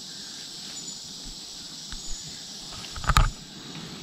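Steady high-pitched rainforest insect chorus with a thin whining tone. About three seconds in there is a loud, brief rustling crackle.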